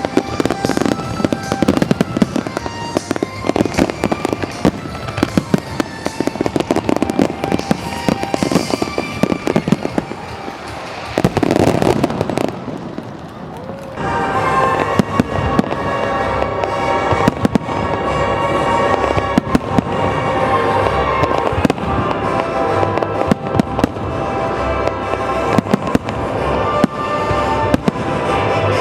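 Aerial fireworks bursting and crackling in quick succession, with music playing alongside; there is a brief lull about twelve seconds in, after which the music's held notes stand out under the continuing bursts.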